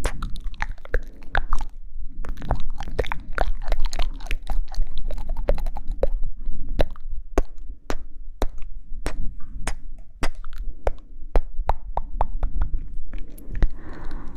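ASMR mouth sounds close to the microphone: wet clicks and smacks of the lips and tongue, several a second and irregular, over a low rumble.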